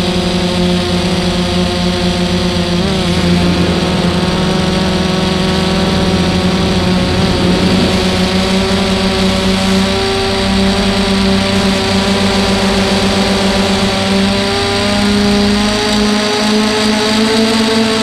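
An FPV drone's electric motors and propellers, heard through its onboard camera: a steady whine made of several tones at once. The pitch wavers briefly about three seconds in and creeps up near the end.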